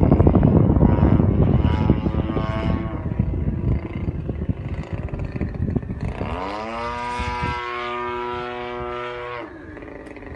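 Gas engine of a 30cc RC aerobatic plane and its propeller, under heavy wind noise on the microphone at first. About six seconds in, the engine note rises and then holds steady for about three seconds before dropping away.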